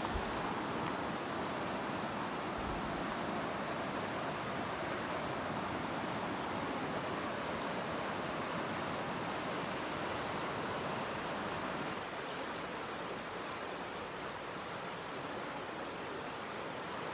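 A stream rushing steadily over its bed, a constant full water noise.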